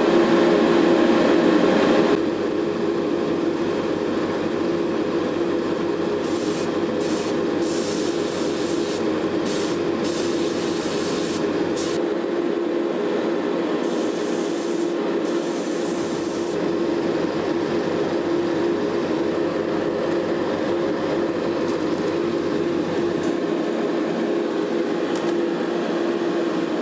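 Paint spray booth's fan running with a steady hum, a little louder for the first two seconds, while an airbrush hisses in short bursts between about six and sixteen seconds in, spraying green paint onto model tank road wheels.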